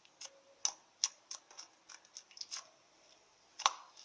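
Slime being squeezed and pressed by hand, giving a string of small, irregular clicks and pops as air pockets burst. The clicks are only moderate, which she judges as a slime that clicks 'mais ou menos'.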